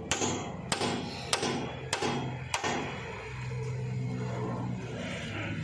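Hammer blows on a steel drift driving a bearing out of a tractor's clutch housing: five sharp metallic strikes about 0.6 s apart, with the bearing moving out a little with each blow. The strikes stop about halfway through, leaving a steady low hum.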